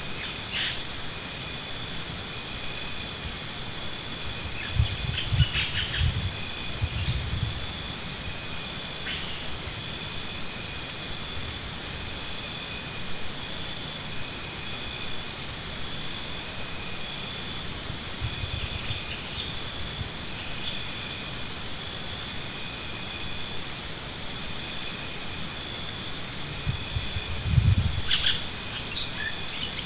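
Insects calling: a steady high singing under a pulsing trill that comes and goes in phrases of a few seconds. A few low bumps break in about a fifth of the way through and again near the end.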